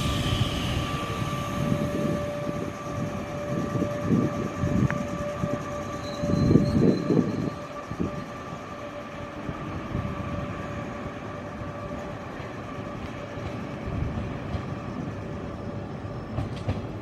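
Electric commuter train running at a station, with a steady whine over low rumbling that swells about halfway through, the whine fading out near the end.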